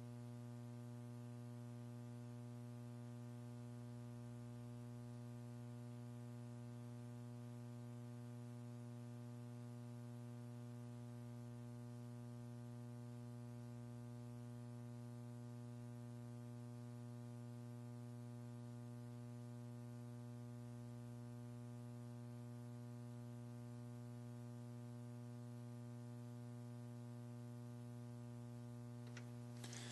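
Steady electrical hum with a stack of even overtones, unchanging throughout, on an otherwise quiet broadcast audio feed.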